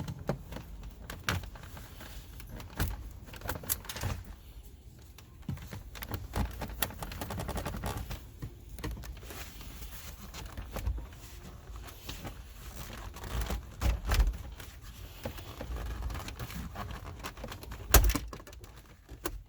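Plastic centre-console trim being pried at around the shifter: scattered clicks, taps and scrapes of handling, with a sharp snap near the end as a clip lets go.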